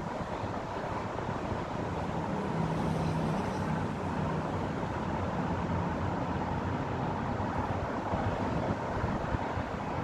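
Steady wash of distant road traffic, with a low engine hum standing out for about a second and a half around three seconds in.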